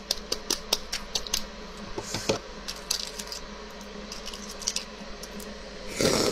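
Shell of a boiled fertilized egg (huozhuzi) being cracked and picked off by fingers: a run of small sharp crackling clicks, thicker about two seconds in. Near the end, a louder sucking sound as the opened egg is put to the mouth.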